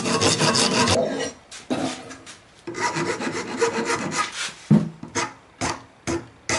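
Hand saw cutting through PVC pipe with back-and-forth rasping strokes. A steady run of sawing, a short pause, another run, then separate, sharper strokes about every half second from near the five-second mark.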